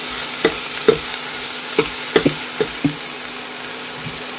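Ginger-garlic paste sizzling in hot oil in a steel kadhai, stirred with a spoon that clinks against the pan about seven times in the first three seconds.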